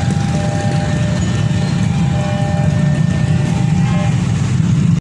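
Steady low rumble of vehicles, with faint thin tones coming and going over it; it cuts off suddenly at the end.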